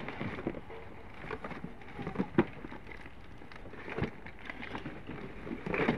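Objects being rummaged through and handled: rustling and clattering with scattered knocks, the sharpest about two and a half seconds in, and a busier burst of clatter near the end.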